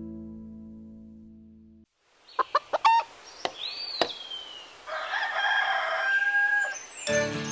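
Cartoon hen sound effects: a few quick pecking taps and chicken calls, one gliding up and down and a longer one later, after a held music chord fades out. A new music tune starts near the end.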